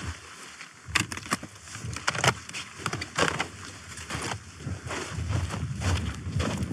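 Footsteps of a hiker wearing microspikes, crunching in snow and stepping on a wooden stile, an irregular crunch or clack with each step. A low rumble builds underneath from about five seconds in.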